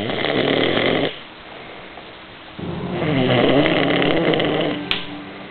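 A person snoring loudly: two long snoring breaths, the second with a wavering, rattling pitch, separated by a quieter pause.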